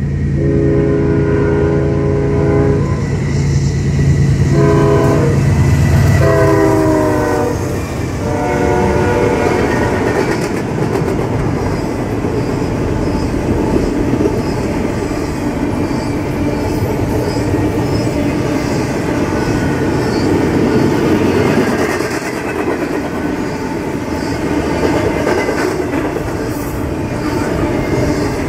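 Norfolk Southern diesel locomotives passing on an intermodal freight train. The horn sounds a long blast, a short one, then two more long blasts that drop in pitch as the locomotive goes by, over the steady drone of the diesel engine. From about ten seconds in, the container cars roll past with a steady rumble and the clickety-clack of wheels over rail joints.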